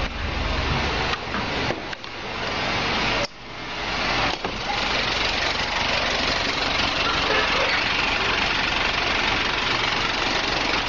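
Truck engine idling steadily, heard close up. The sound dips sharply twice in the first few seconds, then runs level.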